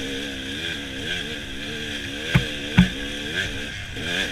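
Dirt bike engine running under way, its pitch rising and falling with the throttle. A little past halfway come two sharp knocks under half a second apart.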